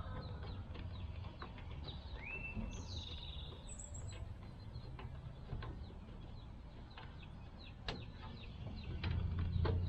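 Background birdsong: a couple of gliding bird calls about a quarter of the way in, and a short high chirp, over a steady low rumble. There are faint scattered ticks and one sharp click near the end.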